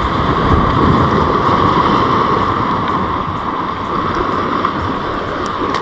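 Steady outdoor wind and sea noise, the wind buffeting the microphone, over a constant high hum.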